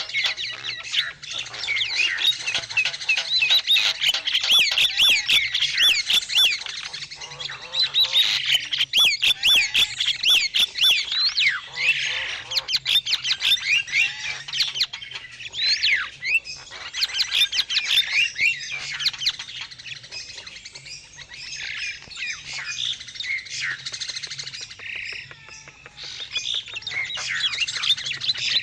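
Starlings (jalak) chattering without pause: fast repeated chirps mixed with harsh squawks, thinning out briefly about two-thirds of the way through. This is a 'master pikat', a starling lure call played to draw in wild birds.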